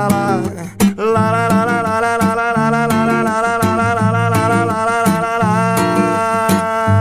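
Music from a song's wordless closing section: a melody held in long notes with vibrato over a bass line, with sharp percussion hits about every two thirds of a second.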